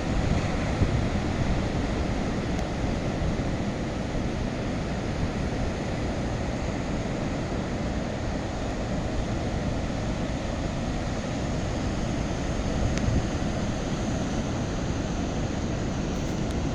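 Large ocean surf breaking in a steady rush of noise.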